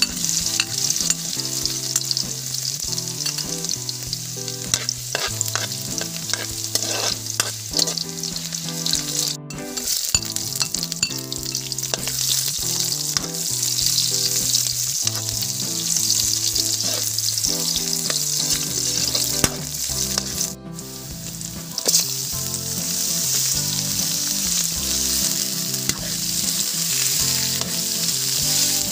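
Chopped garlic, onion and ginger sizzling in hot oil in a wok, stirred and scraped with a metal spatula, with scattered clicks of the spatula on the pan. Near the end, raw chicken feet are in the wok and the sizzle goes on as they are stirred.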